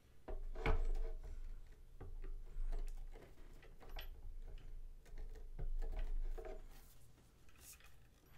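Hard statue pieces being handled and pushed together as a figure is fitted onto its base. Scattered light clicks and knocks come a few times throughout, over low bumps and rubbing against the table.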